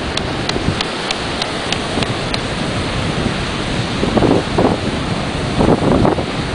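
Strong wind buffeting the microphone over surf breaking on a beach. A run of faint quick ticks sounds in the first couple of seconds.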